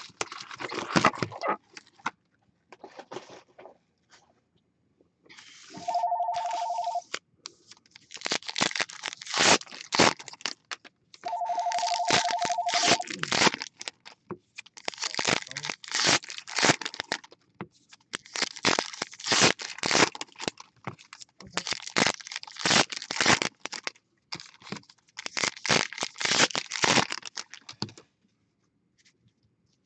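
Sports card packs being torn open, with foil wrappers crinkling and cards being handled in repeated bursts. A telephone rings twice in a warbling tone, about six seconds in and again about eleven seconds in.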